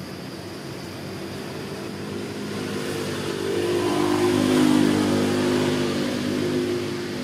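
A vehicle engine passing by: its steady hum grows louder to a peak about halfway through, then fades toward the end.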